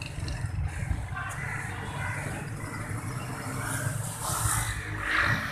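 Low, steady rumble of road traffic.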